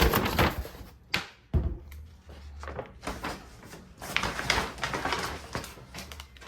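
Groceries being unpacked and handled: a couple of knocks as items are set down, the sharpest about one and a half seconds in, then packaging rustling.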